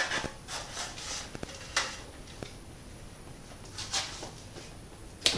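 A few scattered light knocks and clicks of an old fluorescent light fixture being worked loose and handled, with a sharper click just before the end.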